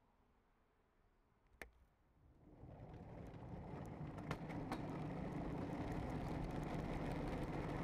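A vehicle getting under way: after a single faint click, a low rumbling rolling noise fades in about two and a half seconds in and builds to a steady run, with a few faint ticks.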